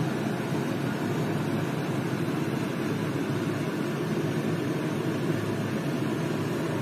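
A steady, even rushing noise, mostly low in pitch, with no distinct knocks or clicks.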